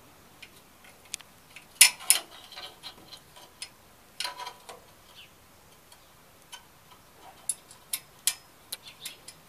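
Sharp metal clicks and taps as short screws are fitted by hand into a satellite dish mast and its steel wall bracket, irregular, with a loud pair about two seconds in and a quick run of clicks near the end.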